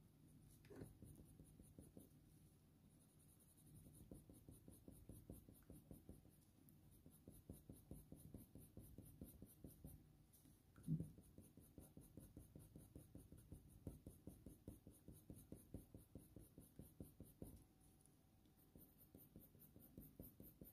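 Faint scratching of a Faber-Castell Polychromos oil-based coloured pencil on hot-press watercolour paper, in quick short strokes at about four a second while fur is hatched in. A single brief low thump about eleven seconds in.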